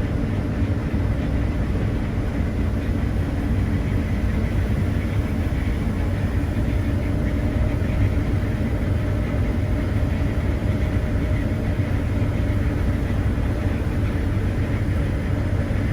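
Combine harvester running while harvesting canola: a steady, even drone of engine and threshing machinery, heard from inside the cab.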